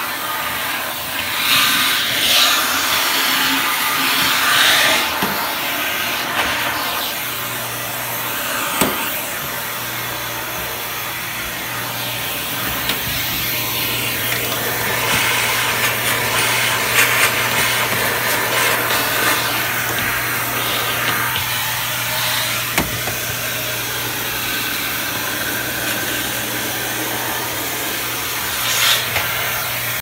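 Vacuum cleaner running steadily, sucking up clumps of dog hair from a hardwood floor. Its rushing suction swells and eases as the nozzle is moved about, with a couple of sharp clicks along the way.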